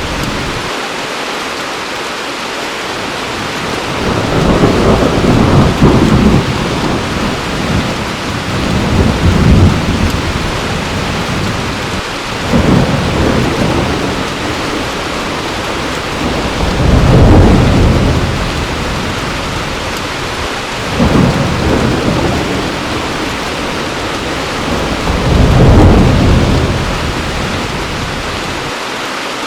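Heavy rain falling steadily, with rolls of thunder. About six low rumbles swell and fade over the rain, the longest lasting two to three seconds.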